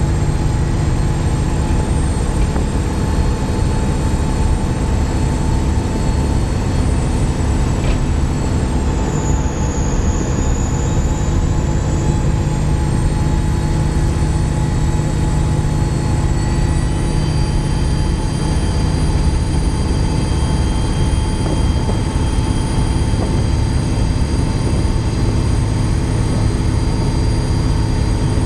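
Dennis Trident 2 double-decker bus with Voith gearbox running under way: a steady engine drone topped by a high, squealing turbocharger whistle. The whistle dips in pitch about nine seconds in and climbs back up about seventeen seconds in.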